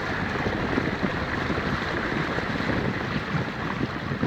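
Steady rush of wind on the microphone over the run of a small motor boat under way on the water.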